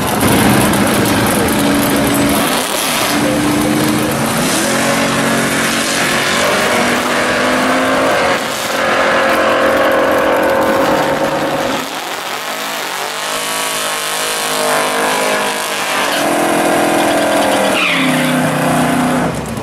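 Drag-race cars at full throttle: engines revving hard, their pitch rising and stepping up again and again as the cars burn out and launch, with tyre squeal.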